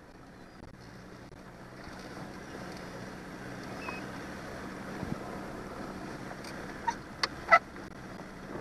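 Johnson 90 hp V4 outboard motor running at slow no-wake speed, a steady low hum under a noisy bed. Near the end there are a few sharp knocks, the last one the loudest and ringing briefly.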